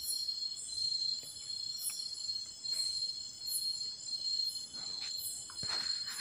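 Night-time insect chorus: crickets trilling steadily at a high pitch, with a higher chirp repeating about every two-thirds of a second. Near the end, a brief rustle from the phone being handled.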